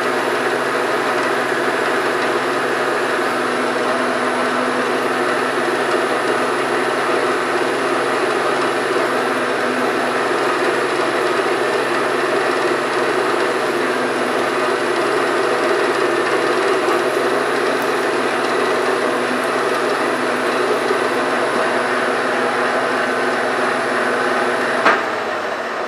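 Drilling machine spindle running steadily with a 1/8-inch drill bit cutting through a metal gear shaft for a roll pin. Near the end a click is followed by the sound falling away.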